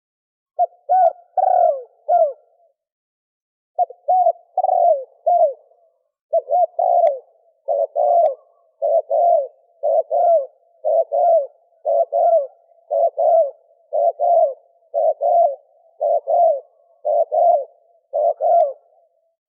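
A male spotted dove cooing in repeated short phrases of low coos. After a brief pause a few seconds in, the phrases follow about once a second until near the end.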